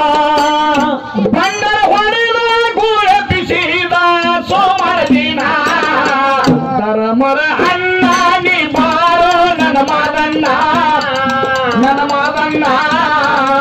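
A man singing a Kannada dollina pada folk song through a stage microphone, in long held notes that waver in pitch, with a hand drum keeping time beneath the voice.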